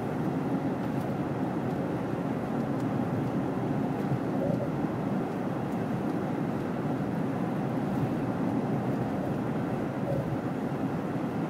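Steady road and tyre noise of a car driving on a snowy highway, an even rush heard from inside the moving vehicle.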